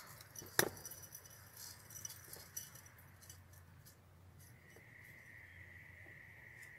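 Handfuls of dry leaf fragments dropped into an empty glass jar: a sharp click against the glass about half a second in, then faint scattered crackling of the dry flakes. A faint steady high tone sets in after about four and a half seconds.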